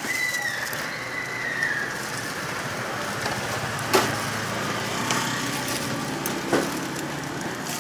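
Steady street traffic noise, with a held high tone for about the first two seconds. Two sharp snips of scissors cutting fried dough sticks, about four and six and a half seconds in.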